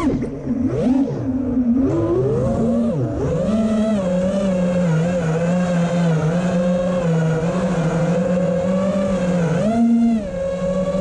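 FPV freestyle quadcopter's brushless motors and propellers whining, the pitch swooping down and up sharply during the first two seconds as the throttle changes, then holding a steady, slightly wavering whine, with a brief rise about ten seconds in.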